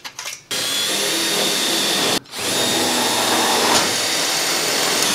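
Cordless drill running at a steady speed in two long runs, with a brief stop just after two seconds in.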